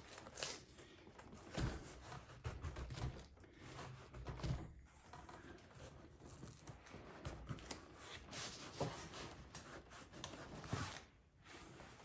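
Faint rustling and scraping of saddle leather being handled and worked into place by hand, with a few soft knocks.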